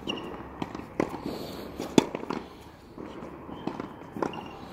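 Tennis ball rally on a hard court: sharp, separate pops of racket strings striking the ball and the ball bouncing, about one each second or two, the loudest about two seconds in.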